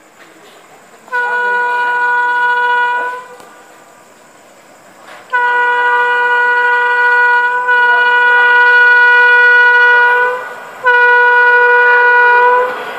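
Electric locomotive air horn, a WAP7, sounded three times by an approaching express train: a blast of about two seconds, a long blast of about five seconds, then a short blast near the end. Each blast is one steady, unchanging chord.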